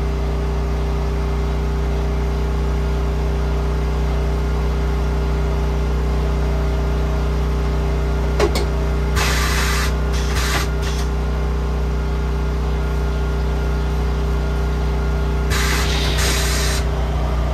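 Steady low machine hum, broken by short hissing bursts of compressed air. A sharp click comes about eight and a half seconds in, the first hiss follows just after it, and more hisses come near the end.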